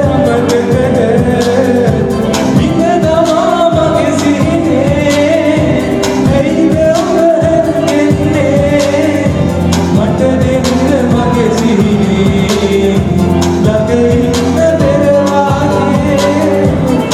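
Live band playing a song through a PA: men singing into microphones over electric guitar and keyboard, with a steady beat.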